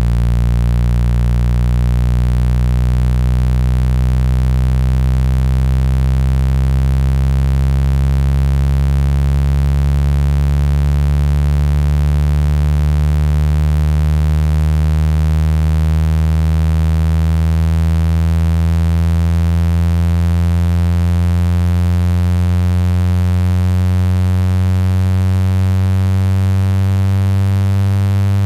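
Synthetic speaker-cleaning tone, played loud to shake water out of a phone speaker: a buzzing stack of low tones that slowly glides upward in pitch.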